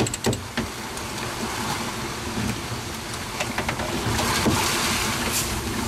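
Gale-force wind and rushing sea around a small sailboat beating to windward in 50-knot gusts, with wind buffeting the microphone. There are a few short knocks in the first second, and the rush swells louder about four seconds in.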